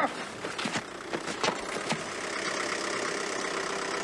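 Scuffling and a few scattered knocks from two people wrestling on the ground. About two seconds in, a taxi's car engine starts to be heard idling steadily.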